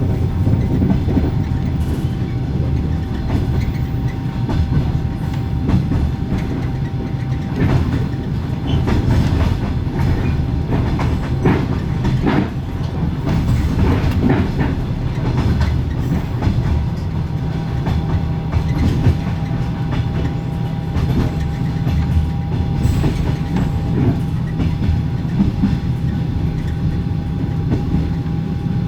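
Inside a compartment passenger car at steady speed: a constant rumble with the even whine of the carriage's axle-driven generator, and wheels clattering over rail joints in clusters, heaviest between about 7 and 16 seconds in. The corridor window is open, letting in more track noise.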